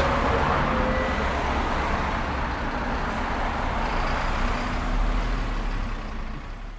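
City street traffic: a steady wash of engines and tyres from passing motor vehicles, fading out near the end.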